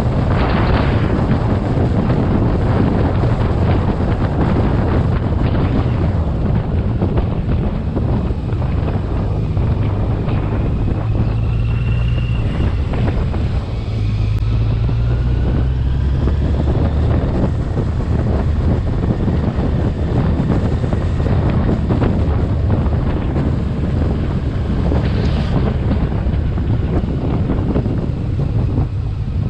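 Wind rushing over the microphone of a camera on a moving motorcycle at road speed, a steady low rumble with the motorcycle's engine running beneath it.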